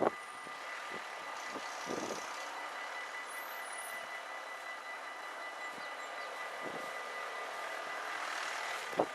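Intercity train passing over a level crossing: steady rolling wheel-on-rail noise with a few short knocks from the wheels over rail joints.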